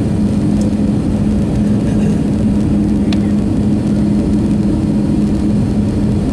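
Airbus A319 cabin noise on final approach: the steady roar of the engines and the airflow over the fuselage, with one low hum held at a constant pitch.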